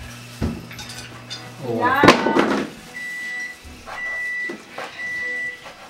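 An electronic kitchen appliance beeper sounds three times, about once a second, each a steady high beep lasting about half a second. Just before, a low steady hum stops about two seconds in.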